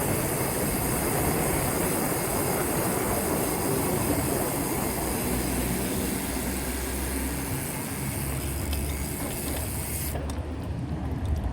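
Steady rushing noise of wind on the microphone and tyres on the road while a bicycle is ridden, a hiss over a low rumble. The hiss dulls about ten seconds in.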